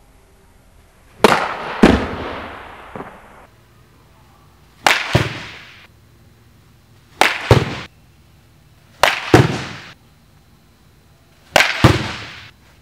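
A baseball bat hitting balls off a batting tee: five sharp cracks about two and a half seconds apart. Each crack is followed a fraction of a second later by a second sharp knock, and each pair fades out in the hard-walled space.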